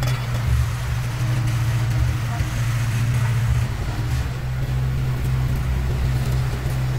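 Diesel engine of road-paving machinery running steadily, a continuous low drone.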